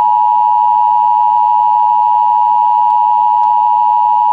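Loud, steady electronic emergency-broadcast attention tone, one unbroken pitch just under 1 kHz, the alert signal that comes before a Civil Defense emergency announcement. It cuts off abruptly at the very end.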